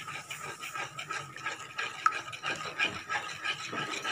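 A spoon stirring and scraping wet masala gravy around a metal pan in quick repeated strokes, with one sharp click about two seconds in.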